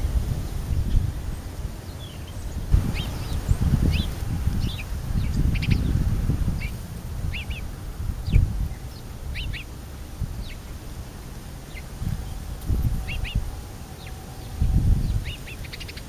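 Small birds chirping: short, high chirps come singly and in quick pairs every second or so, over a low, uneven rumble.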